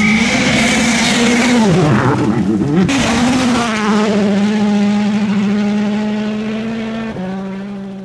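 2017 World Rally Car's turbocharged 1.6-litre four-cylinder engine running at high revs. The pitch dips and wavers for about a second around two seconds in, then climbs and holds high; near the end it steps down and fades.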